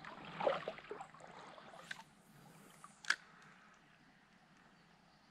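River water splashing and trickling, busiest in the first second and a half, then settling to a faint steady stream sound. One sharp click comes about three seconds in.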